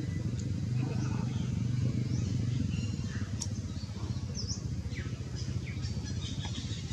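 Outdoor ambience: a steady low rumble, with faint, scattered high bird chirps above it.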